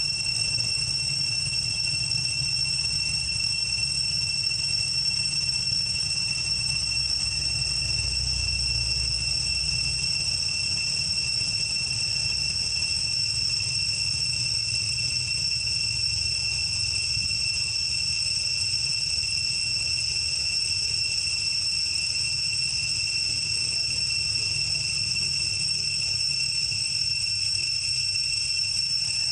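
Insects droning, most likely cicadas: one unbroken high-pitched whine with a fainter, higher overtone, over a low rumble.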